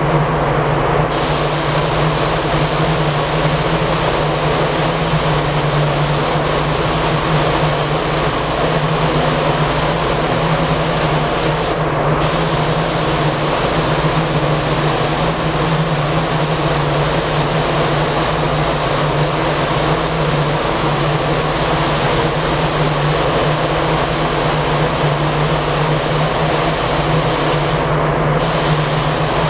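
Paint spray gun hissing steadily as it sprays green paint onto an MDF panel, over a constant low machine hum. The hiss cuts out for a moment about a second in, again near the middle and near the end, as the trigger is let go between passes.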